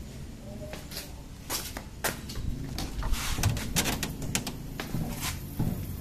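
A Polytron refrigerator being opened and handled: a scatter of clicks and knocks from its door and the freezer compartment, over the steady low hum of the running compressor.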